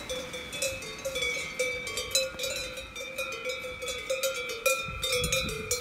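Several cowbells clanking at uneven intervals, each strike ringing on at its own pitch, several bells sounding together.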